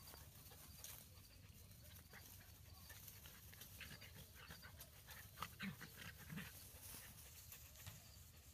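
Very faint sounds of dachshunds at play on grass: panting and light scampering, with a couple of short low dog sounds partway through.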